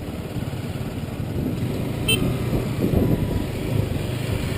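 Motorcycle engine running at a steady pace, with rough wind rumble on the microphone. A brief high beep sounds about two seconds in.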